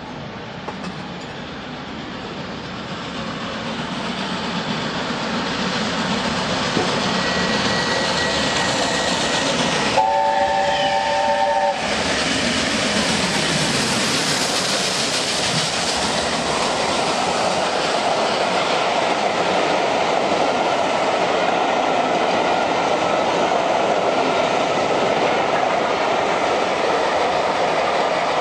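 LNER A4 Pacific steam locomotive approaching fast and running through, sounding its three-note chime whistle for about two seconds roughly ten seconds in. The noise builds as it nears and peaks as the engine passes, then the steady clatter of its coaches rolling past follows.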